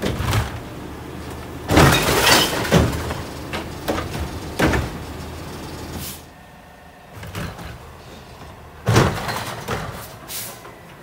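A garbage truck's Curotto-Can automated arm dumps a wheeled cart into the can, with a series of loud clanks and bangs as the cart is tipped, shaken and set back down. The truck's engine runs underneath. More clanks come near the end.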